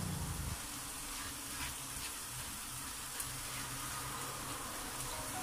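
Diced chicken breast sizzling steadily in a frying pan, with a few faint crackles.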